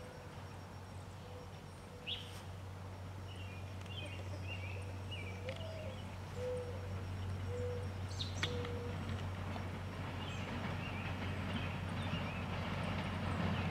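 Birds chirping, and around the middle a bird calls in a few short, low cooing notes, over a steady low hum.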